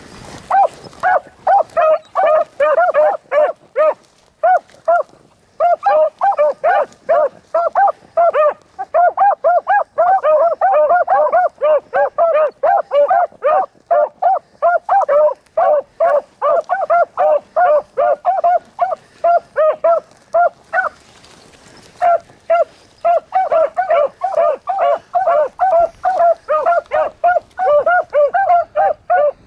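Pack of beagles baying in quick, overlapping barks while running a rabbit's track, hounds in full cry. The chorus breaks off briefly about four seconds in and again about twenty-one seconds in.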